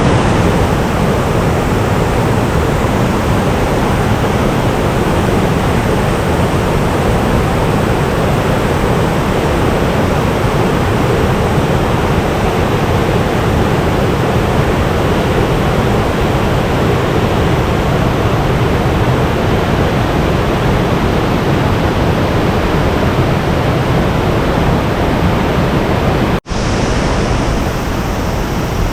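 Steady rushing of a low, high-volume waterfall, water pouring over a small drop. The sound breaks off for an instant near the end, then carries on unchanged.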